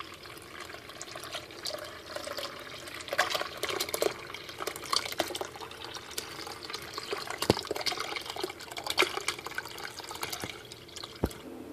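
Churned cream, butter and buttermilk, pouring from a plastic pitcher through a plastic colander into a bowl: a steady splashing pour with small gurgles and crackles, and a light knock near the end.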